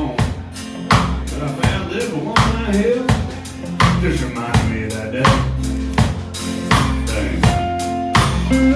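A live country band playing an instrumental passage: a drum kit keeps a steady beat with kick and snare under bass and guitar.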